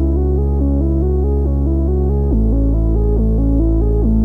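Electronic background music: a synthesizer arpeggio of quick repeating notes over a held bass note, moving to a new chord about two seconds in.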